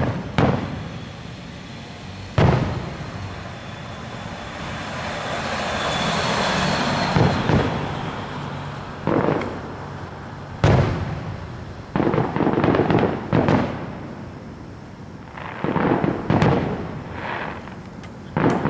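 Aerial fireworks shells bursting: about a dozen sharp booms at uneven intervals, several in quick succession in the second half. A rushing hiss swells and fades midway.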